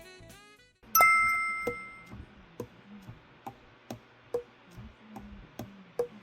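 Music with saxophone fades out, then a single bright ding rings for about a second, followed by soft, evenly spaced ticks a little under a second apart.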